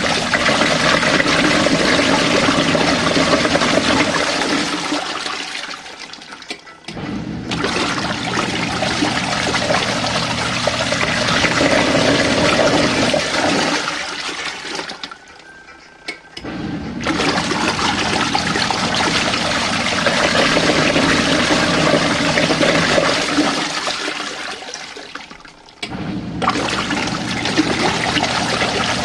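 Compact portable washing machine agitating a tub of hot water during a deep-clean wash cycle: churning, sloshing water over a low motor hum. It eases off and pauses briefly about every ten seconds, then starts up again.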